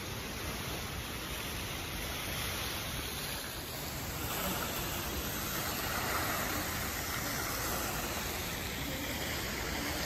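Indoor fountain's water jet splashing down into its basin: a steady rushing hiss that grows a little louder about four seconds in.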